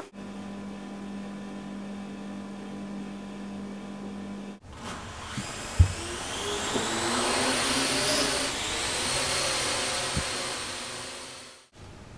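A steady low hum, then, after a cut, a whirring motor sound whose whine rises in pitch and swells louder, with two sharp knocks, before it cuts off suddenly.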